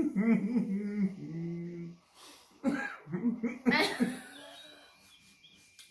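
Laughter in two bouts, the second fading out about three-quarters of the way through.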